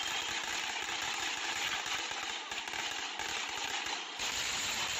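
Ground firework fountain spraying sparks, a dense steady hiss.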